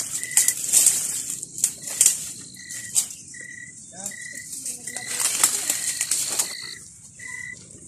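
Rustling and crackling of dry leaves and twigs being handled and stepped on while gathering firewood, with a bird repeating a short, single-pitched whistled note about once a second.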